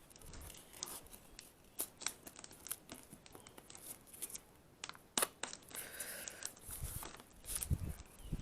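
Duct tape being pulled off the roll, torn and wrapped around the joined necks of two plastic bottles: faint crackling and tearing with scattered sharp clicks.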